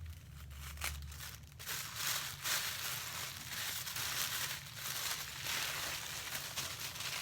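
Packaging being unwrapped by hand: continuous crinkling and rustling with many small crackles, busiest from about a second and a half in.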